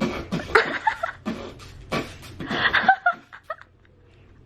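A toddler's beatbox mouth sounds: quick pops and clicks with short vocal bursts, mixed with laughter. It trails off about three seconds in.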